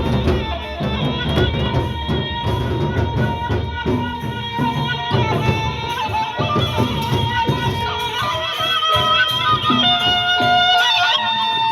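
Gendang beleq ensemble playing a traditional Sasak opening piece: large drums and cymbals keep up dense, rapid strikes under a held, wavering melody line.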